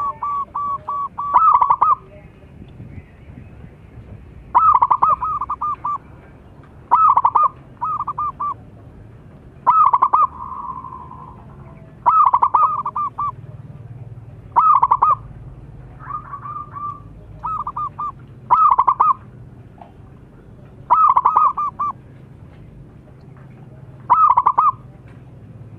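Zebra dove (perkutut) cooing. Short phrases of rapid, stuttering notes repeat every couple of seconds, with a few quieter phrases between the louder ones.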